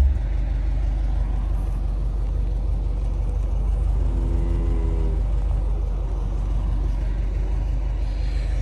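A motor vehicle running steadily with a low, even rumble. A brief tone sounds about four seconds in and lasts about a second.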